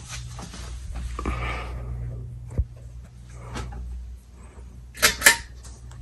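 52-inch Hunter ceiling fan running with a steady low hum after being balanced, with light scattered clicks. A sharp click comes about two and a half seconds in, and a loud double clack about five seconds in.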